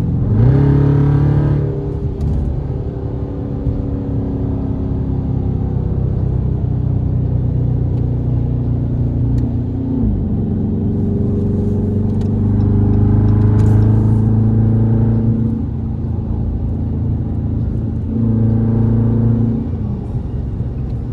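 Dodge Charger's engine heard from inside the car while driving. It swells and rises in pitch as the car accelerates several times, with drops in pitch between as the transmission shifts or the throttle eases.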